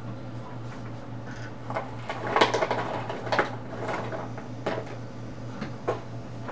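Colouring supplies being handled on a table: a cluster of clicks, taps and rustling about two to three and a half seconds in, then a couple of single clicks, over a steady low hum.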